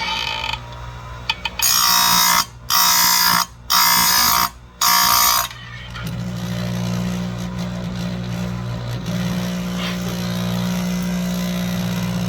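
Electric chainsaw-chain grinder running with a steady motor hum. Its grinding wheel is lowered onto a chain tooth four times in quick succession, each pass a loud high grinding sound of under a second, in the first half. After that the motor runs on alone.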